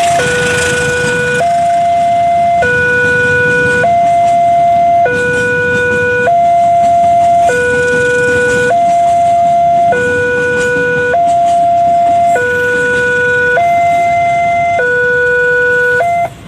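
Railway level-crossing warning alarm sounding: two electronic tones, one low and one higher, alternating about every second and a bit, while the tank-wagon train runs past with a low rumble beneath. The alarm cuts off suddenly near the end.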